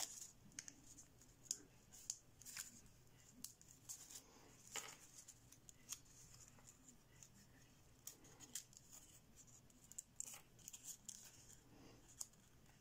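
Thin 15 cm kami origami paper being folded and creased between the fingers: faint, irregular crinkles and small sharp paper clicks.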